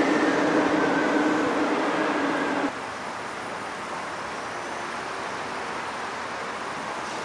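Subway train running on the elevated track overhead: a rumble with a steady whine in it, which cuts off abruptly about two and a half seconds in. After that, the steady rush of a shallow stream flowing over stones.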